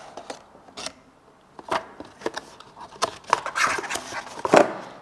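Cardboard packaging being handled as a box is opened and its white paper insert pulled out: rustling and scraping with a few sharp clicks and snaps, the loudest near the end.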